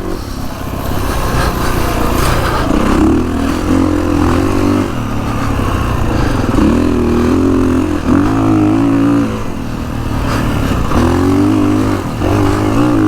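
Kawasaki KX450X dirt bike's single-cylinder four-stroke engine riding hard, revving up and easing off several times as the throttle is opened and closed.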